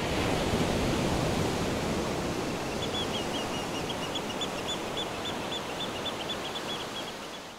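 Steady rushing outdoor ambience, with a small bird chirping a quick run of short high notes from about three seconds in.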